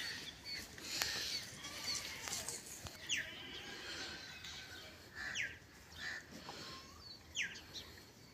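Birds calling, with a sharp downward-sweeping call repeated three times about two seconds apart among smaller chirps. A single sharp click comes about a second in.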